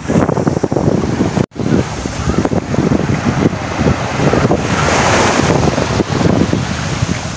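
Small waves washing up a sandy beach, with strong wind buffeting the microphone throughout. A wave's hissing wash swells up past the middle, and the sound drops out for an instant about a second and a half in.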